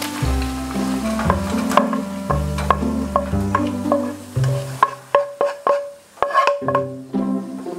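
Sharp clicks and clatters, denser and louder in the second half: pan-fried egg tofu slices being tipped into a wire mesh strainer to drain off their oil. Background music with a stepping bass line plays under them.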